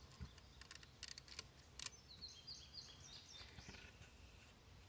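Near silence outdoors: a few faint clicks as the small wooden spinning wheel is handled, and a bird chirping a quick run of short high notes about halfway through.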